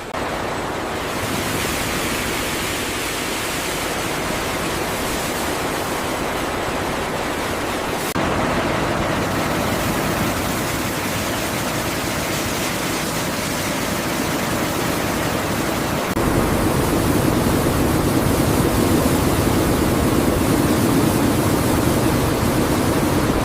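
Steady rushing noise of a food factory's processing line. It changes character about 8 and 16 seconds in, the last part louder and heavier.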